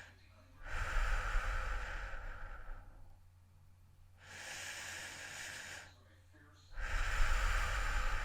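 A person breathing heavily, about two seconds per breath: a softer, airy breath alternates with a louder one that carries a low rumble, twice over.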